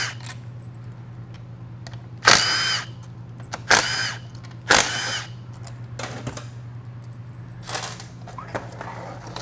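Cordless power driver spinning out valve body bolts from an automatic transmission in short whining bursts, each under a second. Three strong bursts come in the middle and weaker ones follow near the end, over a steady low hum.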